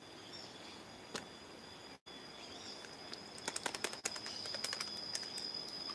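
A quick run of light clicks and taps about halfway through as a rawhide wayang kulit puppet is handled close to the microphone, over a steady high-pitched insect drone.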